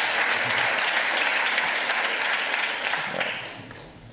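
Audience applauding at the end of a talk: many hands clapping, thinning out and dying away about three seconds in.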